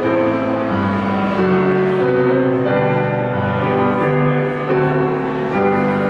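Mixed choir of men's and women's voices singing a Christmas carol in slow held chords that change about once a second.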